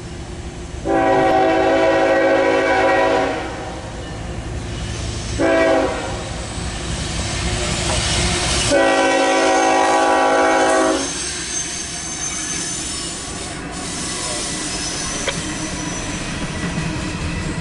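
CSX freight train's locomotive horn sounding a chord in three blasts: a long one, a short one, then another long one. The rumble of the empty coal train's cars rolling past follows.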